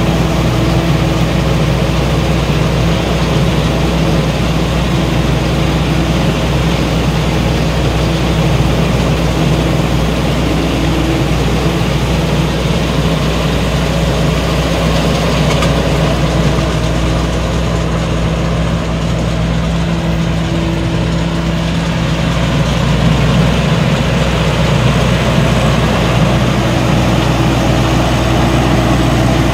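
Tracked rice combine harvester running steadily at working speed while it cuts and threshes standing rice: a continuous diesel engine drone mixed with the rushing of the reel and threshing machinery.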